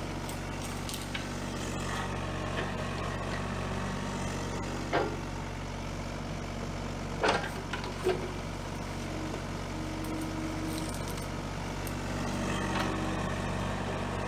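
Kubota mini excavator's diesel engine running steadily under load while the boom and bucket work through brush. A few sharp knocks come about 5, 7 and 8 seconds in.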